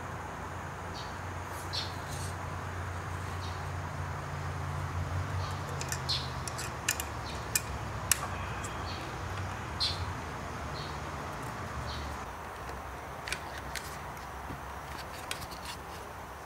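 Scattered light clicks and ticks of a steel bicycle brake cable and brake arm being handled as the new rear brake cable is threaded through, over a steady low hum.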